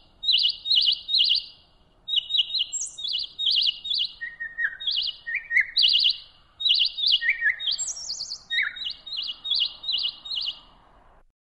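Eurasian magpie chattering: short call notes repeated in quick runs, with a few lower notes that fall in pitch mixed in. The calling stops about a second before the end.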